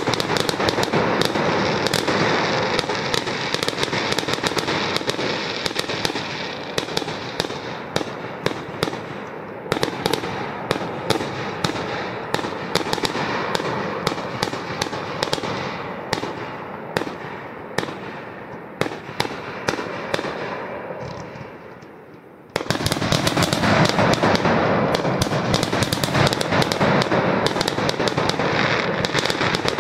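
Fireworks going off in a dense barrage of sharp bangs and crackling, many reports a second. The barrage gradually fades until about 22 seconds in, then a new, louder volley starts abruptly and keeps going.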